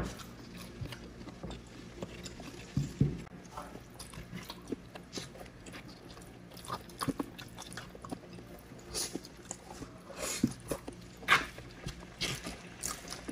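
Close-miked eating sounds of people eating grilled chicken and rice with their hands: chewing, lip smacks, sucking of fingers and the tearing of meat. These come as irregular sharp clicks and smacks, loudest about three seconds in and again near eleven seconds.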